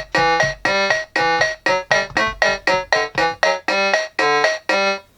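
Yamaha PortaSound PSS-30 playing its built-in demonstration tune: short, evenly spaced electronic notes, about three a second, over a low accompaniment that drops out about three and a half seconds in.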